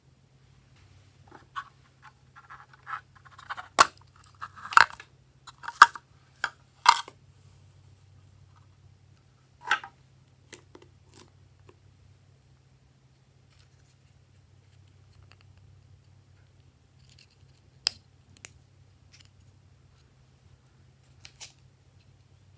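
Small plastic cosmetic containers handled by hand, a nail-polish bottle and an eyeshadow compact: a quick run of sharp clicks and taps in the first several seconds, then a few single clicks spaced apart. A faint low hum lies underneath.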